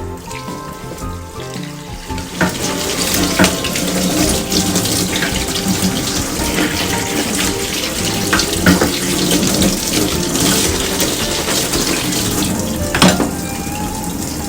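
Kitchen tap running water into a sink while blanched pork bones are rinsed, with a few sharp knocks.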